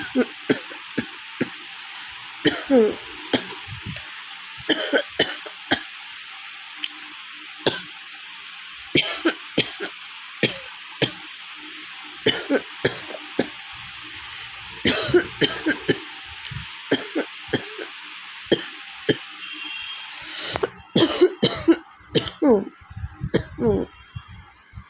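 A woman coughing over and over, short coughs coming singly and in clusters every second or two, the real cough of a head cold after a week of fever.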